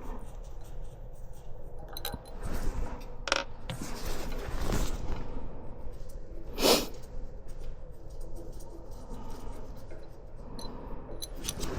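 Hand tools and small metal parts of an air compressor regulator clicking and scraping as it is taken apart, with one louder scrape about seven seconds in.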